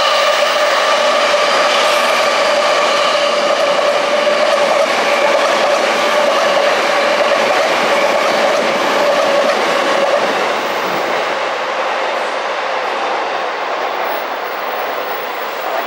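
JR East electric commuter train passing close by: a loud steady whine at several pitches over the running noise of the train, easing off after about ten seconds.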